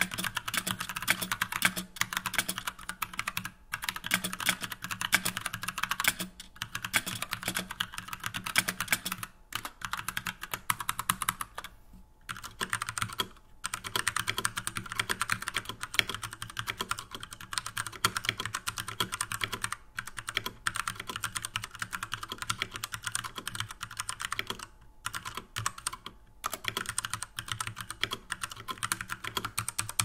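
Fast, continuous typing on 60% mechanical keyboards with tactile brown switches: first the custom GH60 with Gateron Brown switches and DSA keycaps in a wooden case, then a Poker II with Cherry MX Brown switches and blank keycaps in a wooden case. The typing breaks off briefly about twelve seconds in.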